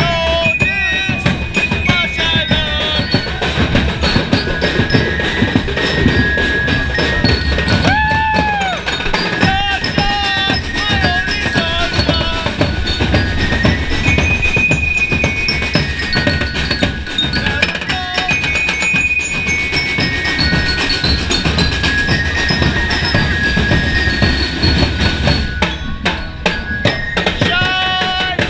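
Ati-atihan street drumming: a loud, continuous, fast beat of drums, with voices in the crowd shouting and chanting over it.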